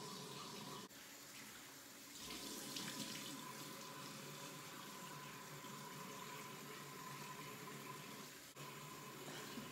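Water running from a bathroom sink tap while a face is washed over the basin, a little louder for a second or so about two seconds in.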